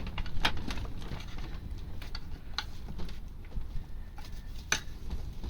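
Scattered sharp clicks and light knocks of metal parts and tools being handled while the loosened rear clutch cover is worked off the motorcycle engine, with three clearer clicks about half a second, two and a half seconds and nearly five seconds in.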